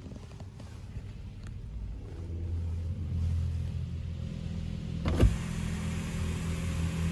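Steady low machine hum of an automatic car wash, heard from inside the car's cabin, growing louder over the first few seconds. A single thump comes about five seconds in.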